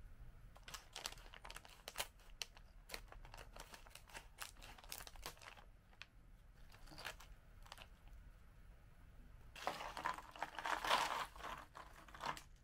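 Plastic snack bag crinkling as it is handled and opened, then soy sauce rice crackers poured out of the bag onto a plate for about three seconds near the end.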